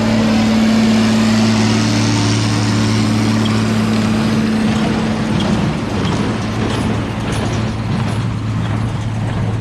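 Tractor engine running steadily with a square baler working, a loud even hum. Its higher tone fades about halfway through, leaving a rougher machinery noise.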